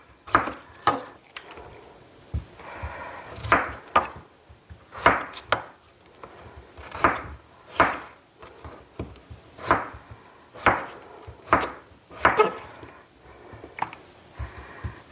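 Kitchen knife cutting peeled potatoes into small pieces on a wooden cutting board: irregular knocks of the blade hitting the board, about one or two a second.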